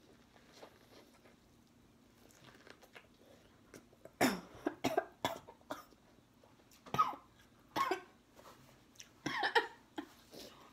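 A woman coughing hard in a run of short, sharp coughs starting about four seconds in, after nearly choking on a bite of corn on the cob.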